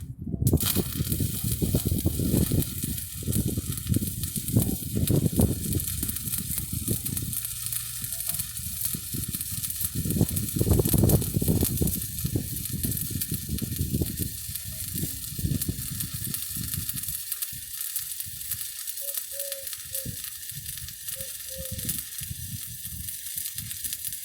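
Stick welding arc with a 7018 electrode, burning with a steady frying crackle. The arc strikes about half a second in and breaks off sharply at the end.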